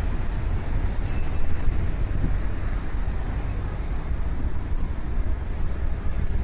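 Traffic noise from a busy city street: cars passing in a steady wash of sound, with a strong low rumble underneath.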